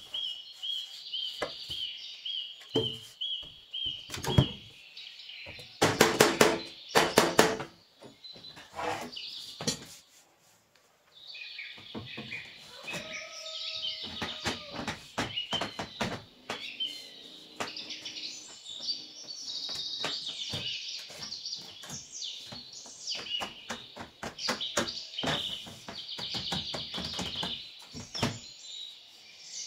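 Small birds chirping, opening with a quick run of repeated chirps and continuing through, over a run of sharp knocks and taps that are loudest about a quarter of the way in. The sound drops out briefly about a third of the way through.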